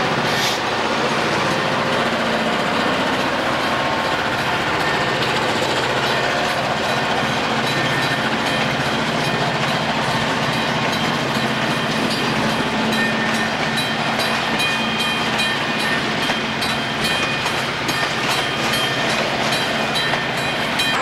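McCloud River Railroad diesel freight train rolling past, its locomotive engine running under steady rail and wheel noise, with a regular clicking that grows stronger over the last two thirds.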